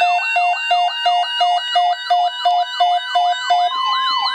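Several electronic sirens sounding together: a fast yelp sweeping up and down, a higher wavering wail, and a tone pulsing about three times a second. The pulsing stops about three and a half seconds in and a steady tone carries on.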